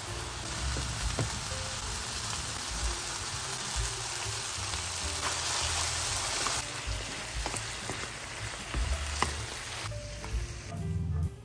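Vegetables and carrot strips sizzling in a hot frying pan as they are stir-fried, with a few sharp clicks of the utensils against the pan. The sizzle stops near the end.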